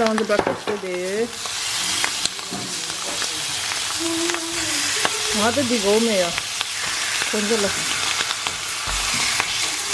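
Bacon rashers sizzling as they fry in a hot pan, a steady crackling hiss, with light clicks and scrapes of tongs turning the strips.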